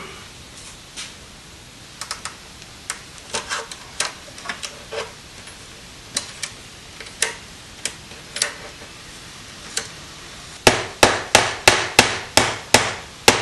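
Scattered light clicks and taps from handling cables and fittings, then a hammer striking metal at the bottom of a steel breaker panel: about nine quick, even blows, roughly three a second, starting near the end.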